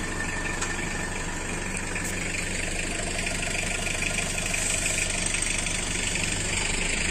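Motorcycle engine idling steadily while the bike stands still.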